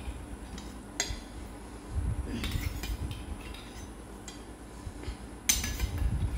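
A stainless-steel serving spoon clinking against a steel bowl and plate, with a few scattered clinks and one sharp clink near the end as the loudest.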